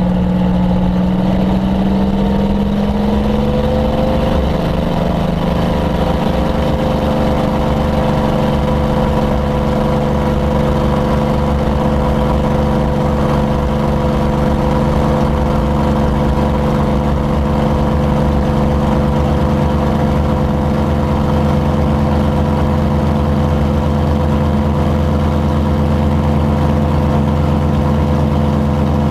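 The Rolls-Royce Merlin V12 of the Voodoo P-51 Mustang racer, heard from inside the cockpit: a steady, loud engine drone whose pitch rises over the first few seconds and then holds level.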